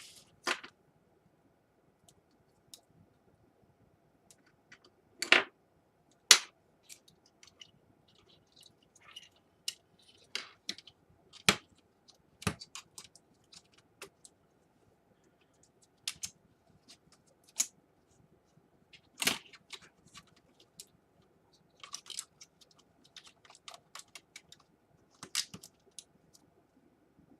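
Irregular clicks, taps and knocks from a Dell Inspiron 11 laptop's plastic case and keyboard parts being handled and fitted during a keyboard replacement, with a few louder knocks, over a faint steady hum.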